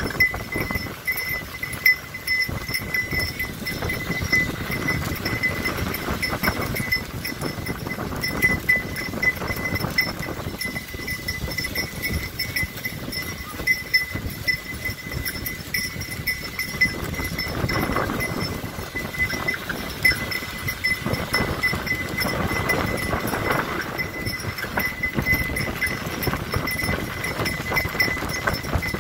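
Horse pulling a cart at a steady pace, its hooves beating an even rhythm over the cart's rattle. A high ringing tone pulses along with the stride.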